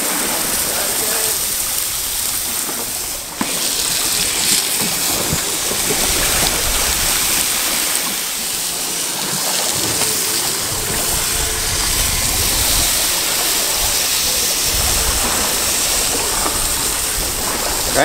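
Steaks sizzling on a rail-mounted gas barbecue: a steady, loud hiss, with wind and sea rush rumbling underneath at times.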